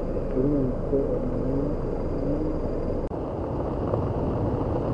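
Steady low rumble of stormy wind on the microphone, with faint voices in the background and a brief drop-out about three seconds in.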